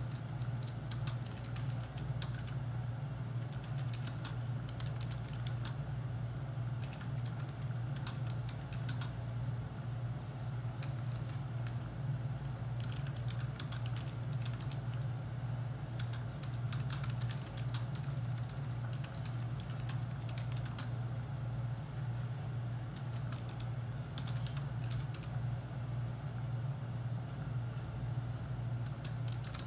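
Typing on a computer keyboard: bursts of quick key clicks separated by short pauses, over a steady low hum.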